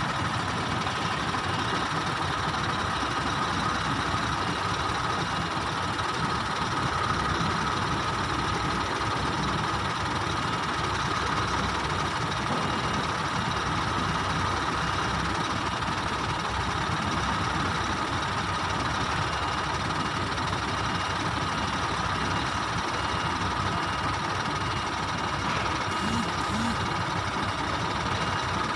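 Heavy truck's diesel engine running steadily at low speed, with a steady high whine over it.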